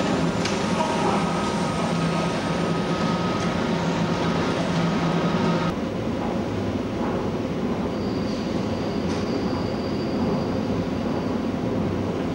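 Berlin S-Bahn class 480 electric train braking along the platform. Its drive hums with steady tones until they cut off abruptly about six seconds in as it stops. A faint high whistle-like tone follows for a few seconds.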